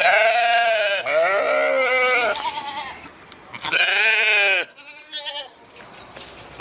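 Sheep bleating: three loud, quavering bleats, the second lower and longer, then a fainter short bleat about five seconds in.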